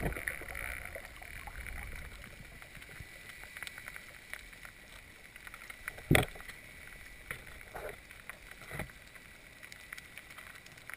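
Muffled underwater ambience picked up by a camera in its waterproof housing: a low, even hiss with scattered faint clicks, and one sharp knock about six seconds in, with a couple of softer knocks after it.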